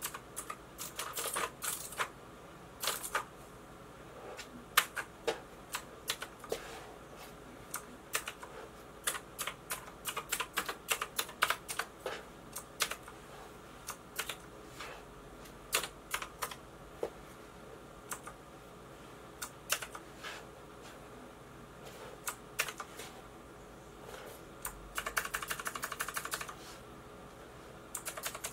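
Keys being pressed on a Micronics MANIC X48 keyboard with optical switches and crystal keycaps: irregular single key clicks and short clusters, then a fast rattle of presses lasting about a second and a half near the end.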